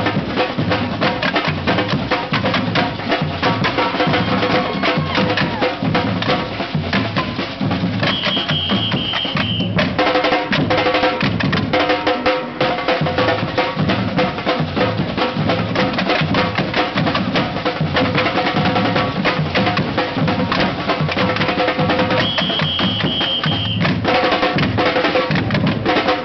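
Parade drummers playing a steady rhythm on hand-carried drums, with a high held tone sounding twice, about a third of the way in and again near the end.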